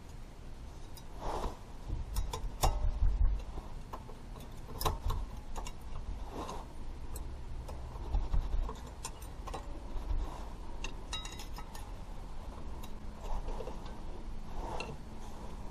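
Scattered metallic clicks and clinks of brake parts and hand tools being handled at a car's rear brake caliper, with a few dull knocks about two to three seconds in and again around eight seconds.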